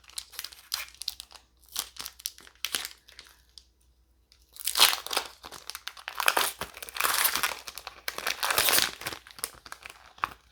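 Foil wrapper of a trading-card booster pack crinkling and tearing as it is pulled open by hand: scattered short rustles at first, then a louder, longer spell of tearing and crinkling from about the middle until near the end.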